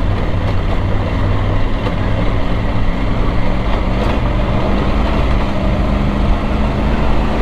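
Triumph Tiger 900 Rally Pro's inline three-cylinder engine running steadily on a dirt track, its pitch rising slightly about halfway through, under a constant rush of wind and tyre noise.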